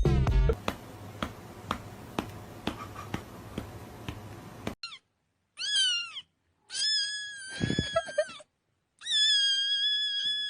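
A domestic cat meowing three times: a short rising-and-falling meow, then a longer one, then a long, level drawn-out meow. Before the meows there are a few seconds of faint hiss with small clicks.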